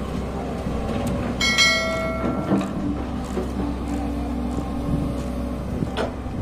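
Komatsu PC130 hydraulic excavator's diesel engine running steadily as the boom and bucket move. About a second and a half in, a short metallic ring that fades out within a second.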